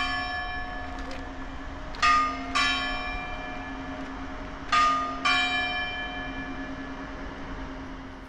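Church bells ringing in pairs of strokes, two bells of different pitch about half a second apart, the pair repeating every couple of seconds. A low hum rings on between the strokes and slowly dies away near the end.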